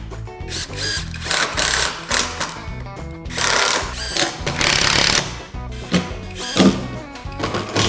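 Cordless impact driver driving screws into a plywood top in several short, rattling bursts. Background music plays underneath.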